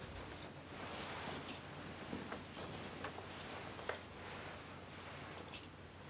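Scattered light metallic clinks and jingles of bangles, with clothing rustling, as a woman gets up and moves about. The clinks come irregularly and bunch together near the end.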